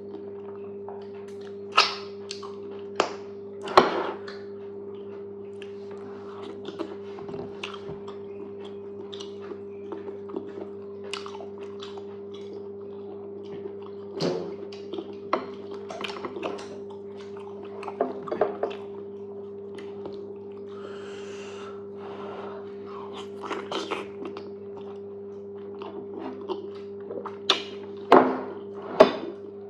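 Close-miked eating of fufu and okra soup: wet chewing and mouth smacks, with sharp clicks scattered irregularly through, several louder near the end, over a steady low hum.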